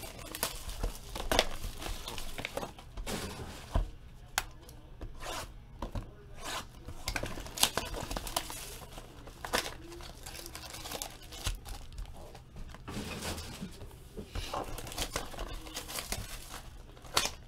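Trading card pack wrappers being torn open and crinkled by hand, an irregular run of crackles and tearing while the packs of 2015 Topps Finest Football are opened.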